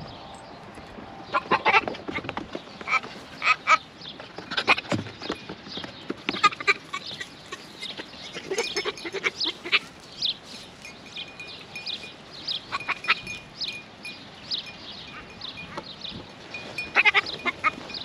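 Nigerian Dwarf goats calling in short bursts, including a young buck kid making rutting buck noises, with scattered short knocks throughout.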